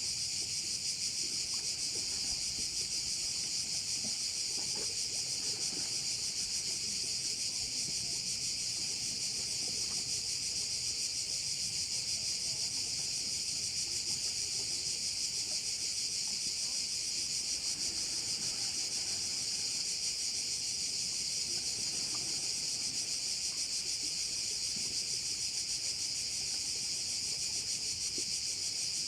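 A dense chorus of summer insects (cvrčci) singing without a break: a steady, high-pitched shrill drone.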